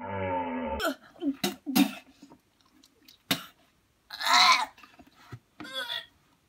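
A snatch of music cuts off about a second in. After it come a few sharp clicks and two short, loud coughing or spluttering bursts from a boy, the second weaker than the first.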